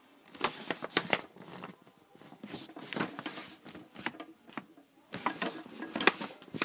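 Paper pages of a hand-drawn comic book rustling and crinkling as they are handled, in irregular short crackles.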